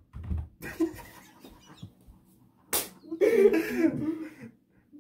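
A single sharp smack a little under three seconds in, followed by about a second of indistinct voices.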